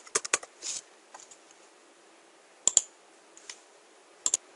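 Computer keyboard keystrokes, a quick run of typing in the first second, then a few separate clicks: a pair about two and a half seconds in and another pair near the end.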